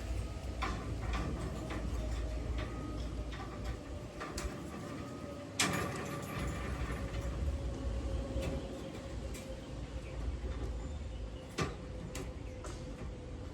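Worksite clatter: scattered knocks and clicks, the sharpest about six seconds in and another near the end, over a low rumble and a faint steady machine hum.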